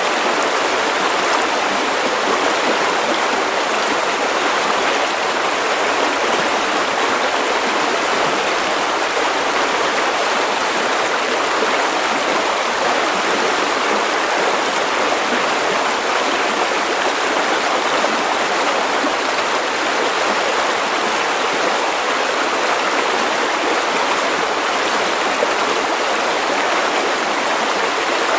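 River water running over stones, a steady even rushing and burbling.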